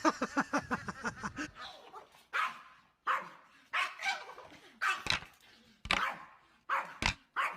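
A dog barking repeatedly, single loud barks about one a second, starting about two seconds in.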